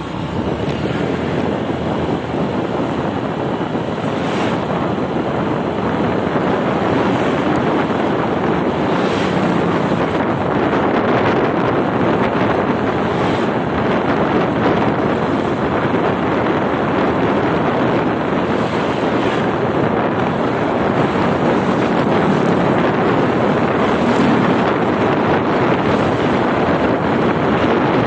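Wind rushing over the microphone of a moving motorcycle, a dense steady rush with road and engine noise underneath, growing louder over the first few seconds.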